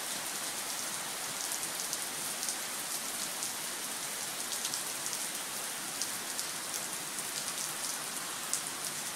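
Steady rain falling, with many sharp ticks of individual drops landing.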